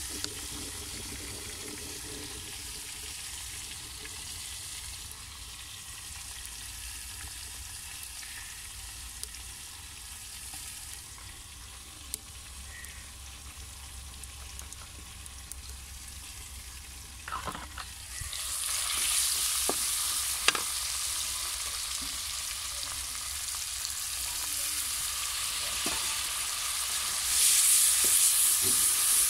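Tomatoes and green chillies frying in oil in a metal karahi: a steady quiet sizzle that turns into a much louder sizzle about two-thirds of the way in and swells again near the end, with a wooden spatula stirring and giving a few sharp taps on the pan.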